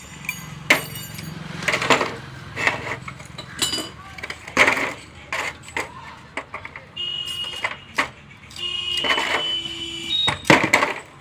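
Metal tools and gearbox parts knocking and clinking irregularly. A steady high-pitched whine sounds in short spells about two-thirds of the way in.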